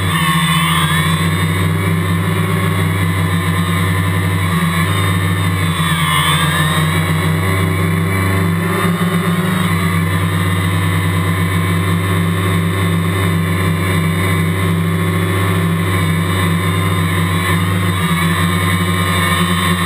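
Quadcopter's electric motors and propellers running steadily up close while it hovers, a continuous buzzing drone with a brief dip and rise in pitch about six seconds in as it manoeuvres.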